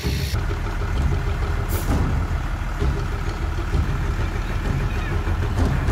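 Large 4x4 expedition truck's diesel engine running steadily with a deep low drone, with a brief hiss about two seconds in.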